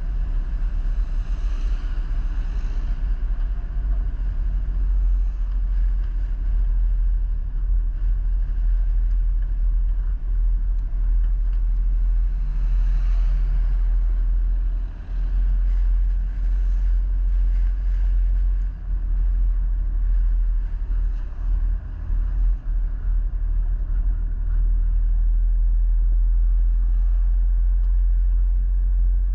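A road vehicle driving along steadily, a continuous low rumble with a few brief dips.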